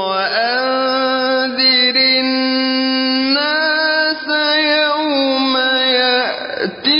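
A man chanting Quranic verses in melodic tajweed style, holding long drawn-out notes with slow slides in pitch. The voice breaks off briefly near the end before carrying on.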